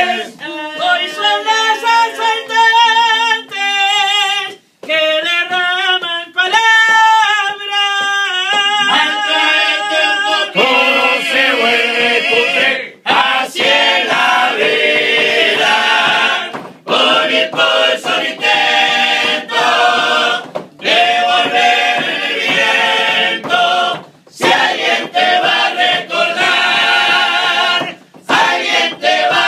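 Uruguayan murga chorus singing a cappella, many voices together in harmony, with brief breaths between phrases.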